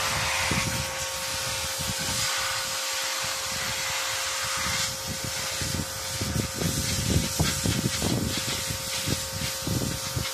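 Electric pressure washer running, its jet hissing steadily onto the wooden slats of a garden table over a steady hum. About halfway through the hiss eases and the sound turns rougher, with irregular low rumbles.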